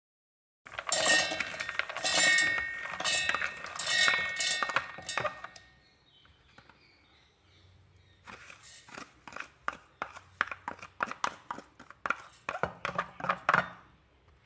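Raw peanuts poured into a stainless-steel mixer-grinder jar, clattering with a ringing metallic rattle for about five seconds. After a pause, quick clicks and taps as grated coconut is scraped from a plastic dish into the jar with a plastic spoon.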